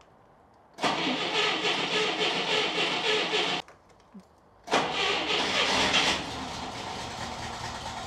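Moskvich 2140's four-cylinder petrol engine on its first trial start after reassembly: the starter cranks for about three seconds without it catching, stops, then cranks again; about a second later the engine fires and settles to a steady idle.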